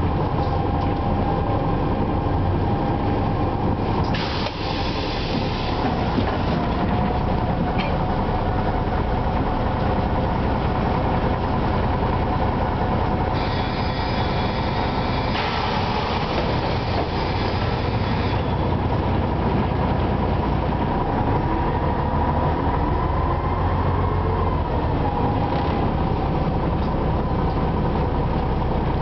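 Ikarus 260 city bus heard from inside the cabin while under way: its six-cylinder diesel engine runs steadily, its pitch rising and falling with speed in the second half. Stretches of louder hiss come about four seconds in and again from about thirteen to eighteen seconds.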